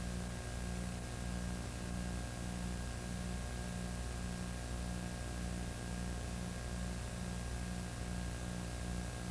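Steady electrical hum and hiss, with a low buzz pulsing about twice a second beneath it and no other sound: noise from the recording chain on a track that carries no audio.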